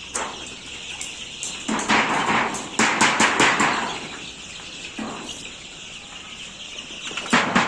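A brood of Fayoumi chicks cheeping continuously, with bouts of rustling and several sharp knocks about two to three and a half seconds in and again near the end.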